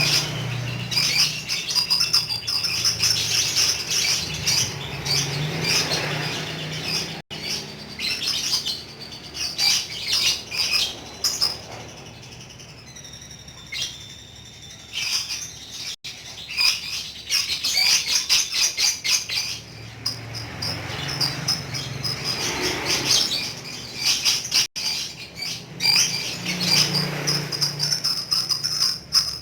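Lovebird singing its long ngekek chatter: rapid, high-pitched chirps strung together in long bouts, with a quieter lull midway before the chatter picks up again.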